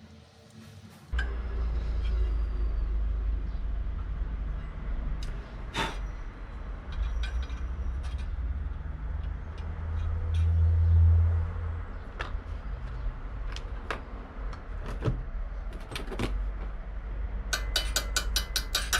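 Metal clinks and knocks of hand tools and parts during reassembly of an ATV's CVT driven pulley, over a steady low rumble that starts about a second in. Near the end a ratchet wrench clicks rapidly.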